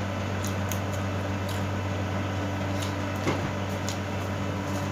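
Steady low mechanical hum from a room appliance, with faint scattered clicks and smacks of someone chewing grilled pork belly.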